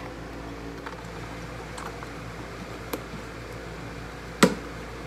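Steady hum of a fan running, with faint handling of a plastic headlight housing and its wires, a light click near three seconds in and a sharp click about four and a half seconds in.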